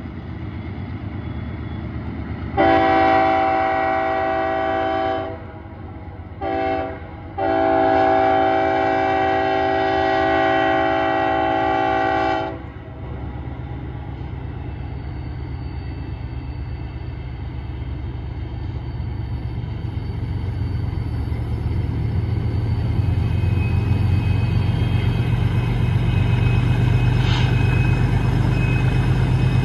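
Diesel freight locomotive air horn sounding a chord of several notes: a long blast, a short one, then a longer blast. Beneath it the low rumble of the BNSF locomotives' diesel engines grows louder as the heavy train draws nearer over the last ten seconds or so.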